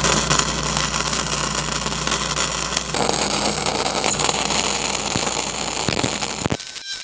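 Gasless flux-core wire-feed arc welding a root pass: a steady dense crackle of the arc over a low steady hum, stopping about six and a half seconds in.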